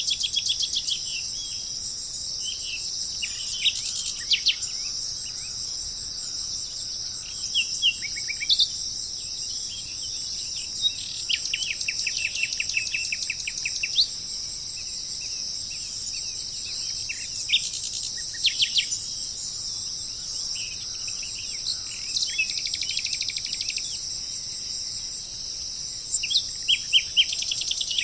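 Small songbirds chirping and giving fast trills of rapidly repeated notes, over a steady high-pitched insect chorus.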